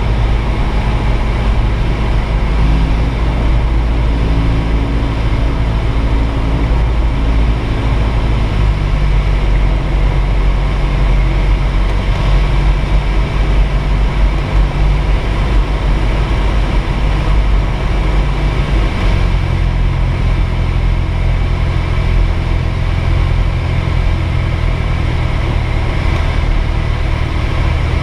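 Light aircraft's propeller engine running steadily, heard from inside the cockpit. The engine note shifts about a third of the way in and again about two-thirds of the way in.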